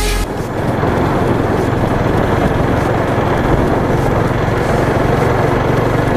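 Motorcycle riding at a steady speed: a constant engine hum under continuous wind and road noise.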